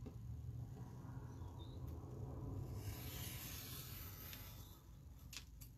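Soft scratchy hiss of a tool and hand moving over card paper along a ruler, lasting about two seconds in the middle, followed by a few light taps near the end.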